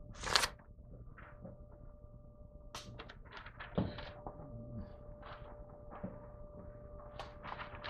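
Light knocks, clicks and brief scrapes of metal tools and parts being handled, with a sharper knock just after the start and a dull one about four seconds in, over a faint steady hum.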